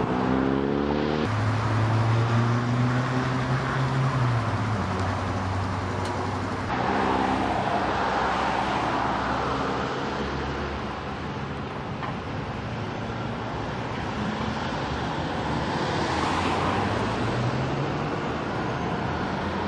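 Road traffic going by: a heavy vehicle's engine note climbs, holds and then drops away, and cars pass with a swell of tyre and engine noise about eight seconds in and again near sixteen seconds.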